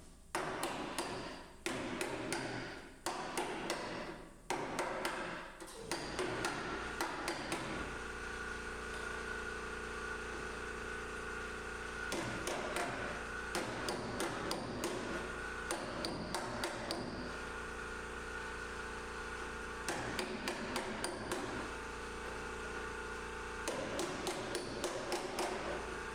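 Hammer blows on car-body sheet metal, coming in quick groups of strikes. A steady machine hum starts about six seconds in and runs under the later groups of hammering.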